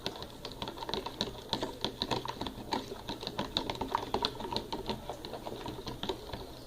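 Gelatin and warm water being stirred in a container, the utensil clicking and scraping against its sides in quick, uneven strokes, several a second.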